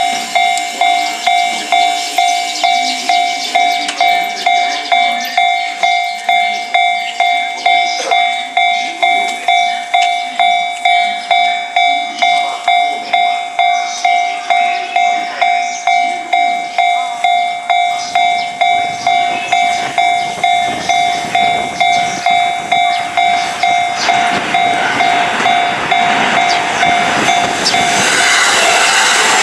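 Japanese level-crossing warning bell ringing in a steady repeating ding, about two strikes a second. About two-thirds of the way in, the noise of a JR Yokosuka Line electric train passing over the crossing builds and grows louder. The bell stops near the end while the train noise carries on.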